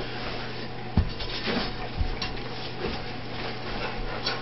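A large dog and a person moving about on carpet: a few soft thumps and shuffles as the Rottweiler steps around and sets her front paws on a small pan, with a light click about two seconds in. A steady low hum runs underneath.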